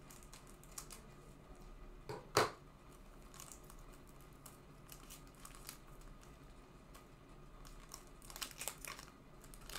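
Crinkling and rustling of a trading-card pack wrapper being handled and torn open, with one sharp crackle about two seconds in and a run of rustles near the end.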